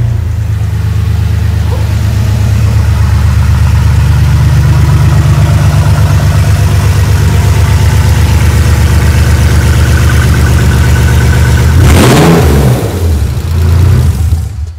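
BMW E46 straight-six running loudly just after start-up through newly fitted stainless steel tubular headers that replace the catalysed factory manifolds. It idles steadily, with a short rev that rises and falls about twelve seconds in.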